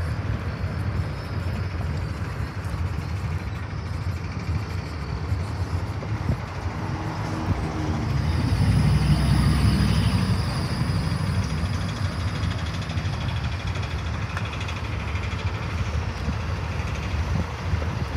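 Steady low road and wind noise inside a moving car, with a low rumble that swells louder about eight seconds in and eases off again around eleven seconds.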